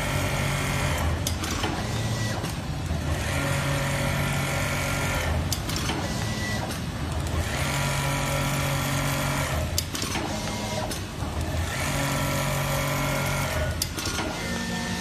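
TYPICAL TC151A computerised template sewing machine stitching in runs of about two seconds with a steady mechanical hum. Short pauses with sharp clicks fall between the runs, four runs in all.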